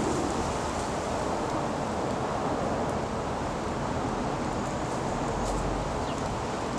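Steady rushing background noise with no clear source, and a faint short chirp about six seconds in.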